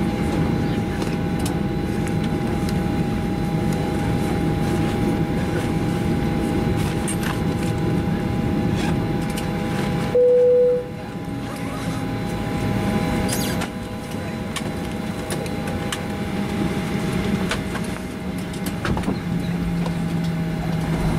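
Cabin noise of a Boeing 737-800 taxiing onto the gate: a steady hum and low rumble with two steady whining tones. About ten seconds in, a single cabin chime sounds, the signal that the seatbelt sign has been switched off at the gate. After it the low rumble drops and stays lower.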